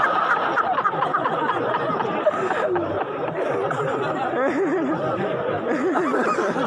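Audience of men laughing, with many voices overlapping at once.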